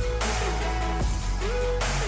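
Background electronic music with a heavy steady bass, a repeating synth line that glides up and down, and a noisy sweep about once a second.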